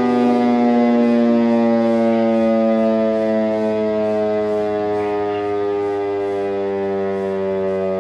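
Motor siren sounding the evening time signal and winding down: one steady wailing tone that falls slowly in pitch and fades gradually.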